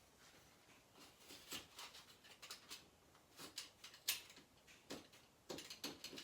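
Faint, scattered clicks and rustles of glass fiber wallcovering being handled and pressed at the wall, a little busier near the end.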